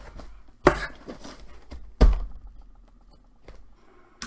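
Two sharp knocks about a second and a half apart, the second the louder, with light handling noise between and after them.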